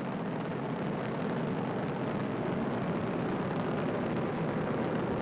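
Steady, distant roar of a Falcon 9 rocket's nine Merlin 1D first-stage engines during ascent.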